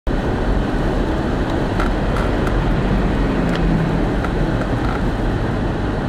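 Steady low rumble of a car driving on a snow-covered highway in a blizzard, heard from inside the cabin: road and wind noise, with a few faint ticks.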